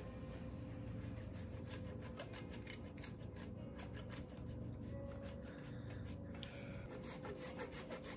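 A wedge of Parmigiano-Reggiano rubbed quickly back and forth on a flat metal hand grater, giving a faint, rapid run of rasping grating strokes.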